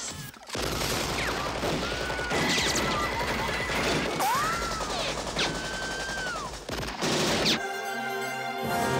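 Film gunfire: a long run of rapid shots from a shootout, with several sliding, whining tones over it. Near the end the shooting stops and music comes in.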